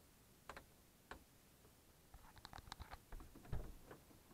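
Two faint clicks from a Tata Nano's dome light switch being toggled, then a run of small rattling clicks and a dull knock near the end from the inside door handle being worked.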